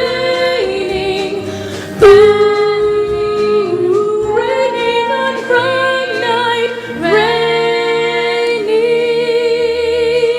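Singing voices holding long notes with vibrato over backing music, moving to a new note every couple of seconds, with a louder entry about two seconds in: the closing bars of a stage-musical song.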